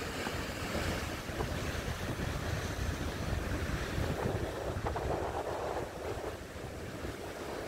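Wind buffeting the microphone over sea waves washing against a wooden jetty, the wash swelling a little louder about four seconds in.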